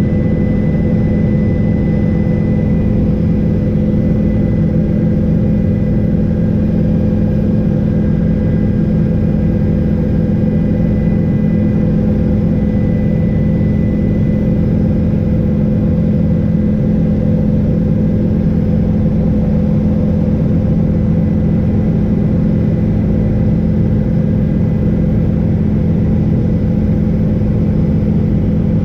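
Helicopter in flight heard from inside the cabin: a loud, steady low drone of rotor and engine, with a thin high whine above it.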